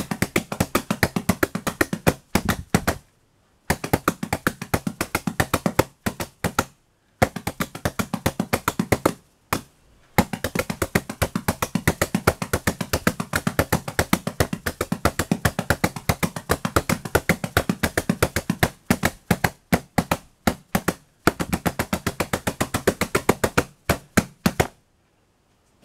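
Drum brushes tapped fast on hard surfaces, the two hands interlocking in a kotekan-style polyrhythm. The strikes come several a second in runs of a few seconds, with short breaks between them.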